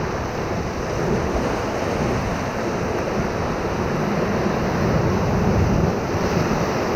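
Whitewater rapids rushing steadily around a raft, a continuous churning water noise.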